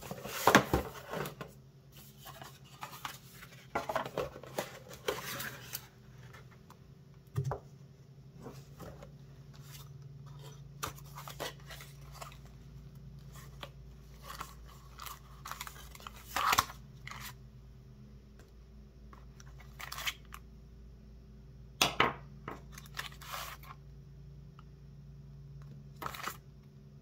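Packaging being unpacked and handled by hand: scattered clicks, rustles and short tearing sounds, loudest in a cluster near the start. A faint steady low hum runs underneath.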